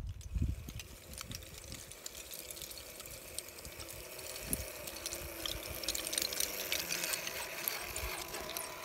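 RC4WD Trail Finder 2 scale RC truck's electric motor and gearbox whining steadily as it crawls over loose slate, growing gradually louder as it comes closer, with many small clicks and clatters from its tyres on the slate pieces.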